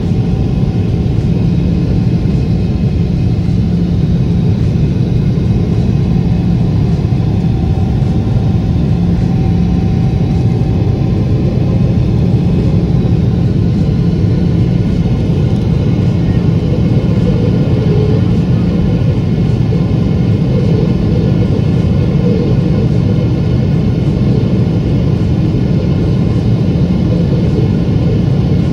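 Jet airliner engine and airflow heard inside the cabin from a window seat beside the engine during the climb after takeoff: a steady, loud rumble with a low hum and faint steady higher tones.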